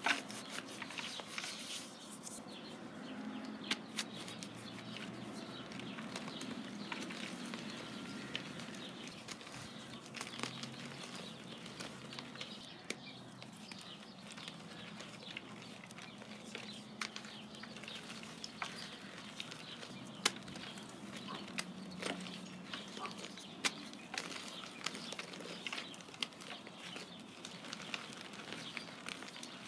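Hands crushing and squeezing lumps of dried blue powder crumble, a steady crunchy crackling with many sharp little cracks as the lumps break, and powder sifting back down between the fingers.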